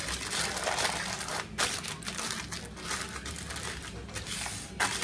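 Aluminium foil crinkling and crackling in irregular bursts as it is folded and pressed tight by hand around a packet of ribs.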